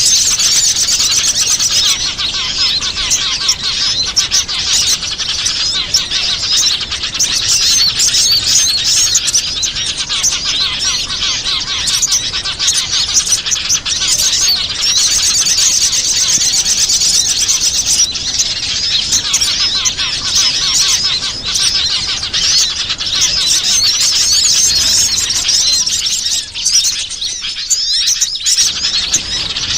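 Dense, continuous chirping and twittering of many small wild birds calling over one another, a bird-lure (pikat) recording played to attract wild small birds.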